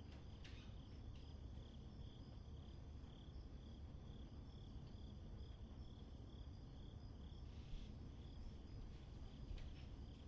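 Faint chirping insects, a steady high chirp repeating two or three times a second over a low hum. A couple of soft knocks come near the end.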